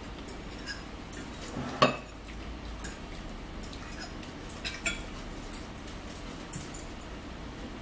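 Fork clinking against a salad bowl as food is picked up: a few scattered short clicks, the loudest about two seconds in.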